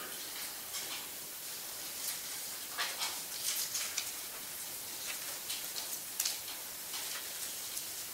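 Steady hiss from the chamber's microphone feed, with scattered faint clicks and rustles of papers and small items being handled at the councillors' desks, busiest about three seconds in and again near six seconds.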